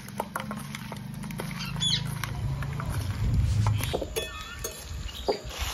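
Wet squelching and light clicks as hands mix raw duck pieces with spices in a steel bowl, over a low steady hum and a few short animal chirps. After about four seconds, a metal spatula stirs onions in a steel wok.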